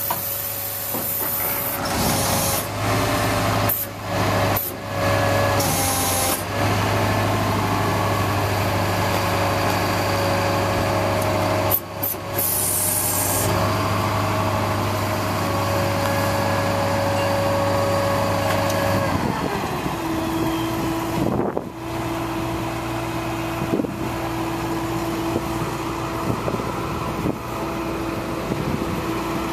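A 1999 International digger derrick truck's engine runs steadily at raised revs, driving the hydraulics while the outriggers are worked, with short hissing and clunking bursts in the first half. About nineteen seconds in, the revs fall and the pitch drops to a lower, steady idle.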